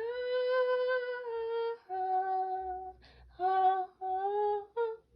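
A girl's high voice singing several long held notes on an open vowel, the first one long, then stepping down to a lower note, with a quick breath between phrases and a short higher note near the end.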